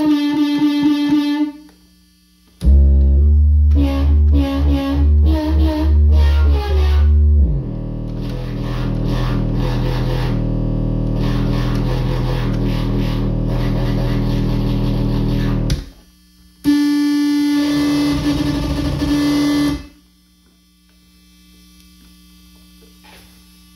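Circuit-bent B. Toys Meowsic cat toy keyboard playing electronic tones in bursts. A loud, low stuttering section gives way to a long sustained tone that cuts off suddenly, followed by a shorter tone, then only a faint hum near the end.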